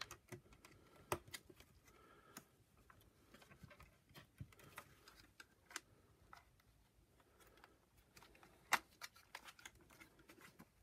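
Faint, scattered clicks and taps of plastic parts being handled as a vacuum power nozzle's housing and light cable are fitted together. One sharper click comes late on.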